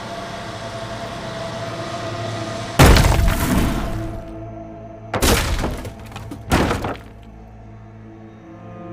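Tense drama soundtrack music punctuated by three heavy crashing impacts. The first and loudest comes about a third of the way in, and two more follow over a second apart. After them the music thins to quiet sustained tones.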